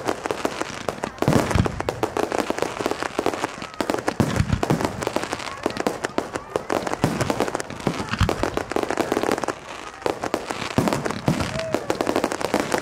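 Fireworks display: a dense, unbroken run of bangs and crackling from bursting aerial shells, with louder clusters of booms scattered through it.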